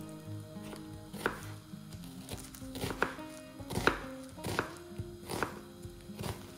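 A knife slicing through half an onion and knocking on a bamboo cutting board: about seven separate cutting strokes, roughly one a second.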